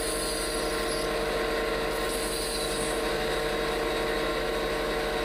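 A steady machine hum: several constant tones over a low, pulsing buzz and a light hiss, unchanging throughout.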